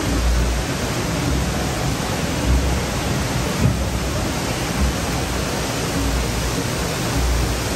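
Steady rush of falling water from an indoor river's waterfall, even and unbroken, with irregular low rumbles underneath.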